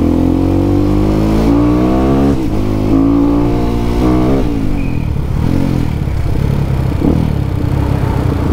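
Yamaha WR155 supermoto's 155 cc single-cylinder four-stroke engine and exhaust pulling under acceleration. The pitch climbs and drops sharply at upshifts about two and a half and four and a half seconds in, then wavers lower as the throttle eases. The exhaust note is fairly mild, with the bike running a stock NMAX camshaft in place of a custom one.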